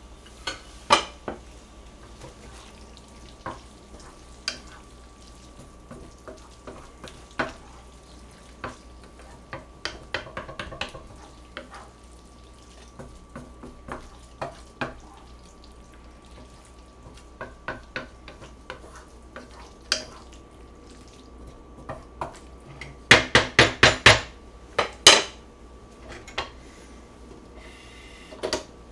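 Utensils clinking, tapping and scraping in a frying pan as spaghetti in tomato sauce is stirred and tossed. Scattered knocks run throughout, and near the end comes a quick run of about six sharp knocks.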